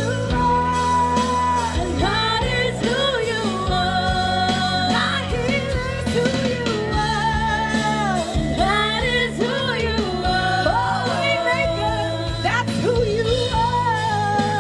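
Live worship band with singers performing a Christian worship song: sung melody over full band accompaniment.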